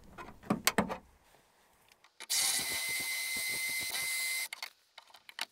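A cordless drill runs steadily for about two seconds, drilling out the end of a speaker-mounting rivet with a small bit. A few light clicks come before and after it.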